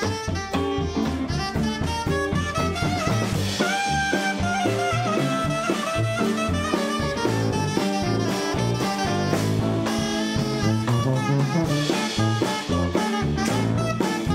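Small swing-jazz band playing an instrumental chorus with no singing. Sousaphone plays a bouncing bass line under a drum kit and electric guitar, with clarinet and trombone playing the lead lines.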